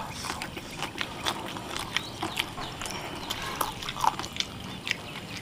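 Close-up mouth sounds of eating spicy fried chicken wings and noodles: chewing and lip-smacking, heard as many small irregular wet clicks.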